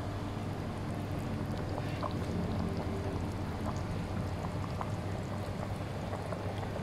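Chicken curry bubbling at a simmer in a frying pan, with scattered small pops of bursting bubbles over a steady low hum.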